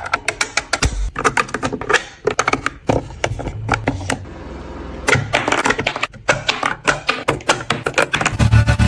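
Rapid, irregular clicking and clattering of hard objects.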